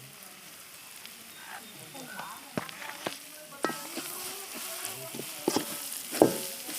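Onion-tomato masala with spice powders sizzling in hot oil in a pan while it is stirred, with a few sharp knocks of the spoon against the pan, the loudest near the end.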